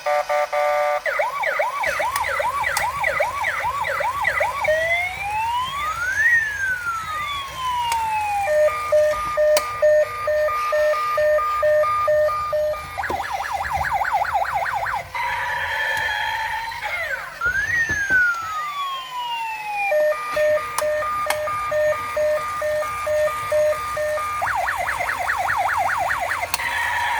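Electronic police siren of a toy RC police car, cycling through its tones: fast yelping sweeps, a slow rising-and-falling wail, then a beeping two-tone pattern. The sequence runs through twice.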